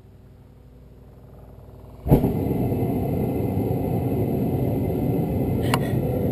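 Homemade propane burner with a MIG-tip jet lighting inside a homemade furnace: a faint hiss grows for about two seconds, then the gas catches with a sudden whoomp and the burner settles into a steady loud roar as the flame spins around the furnace. A single sharp click comes near the end.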